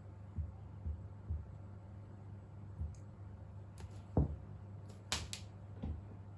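A cat playing: a few soft, dull thumps, then a handful of sharp taps and clicks, the loudest about four seconds in, over a steady low hum.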